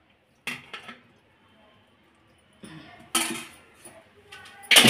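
Metal pots and utensils clattering: two light knocks, a louder clatter about three seconds in, and another starting near the end.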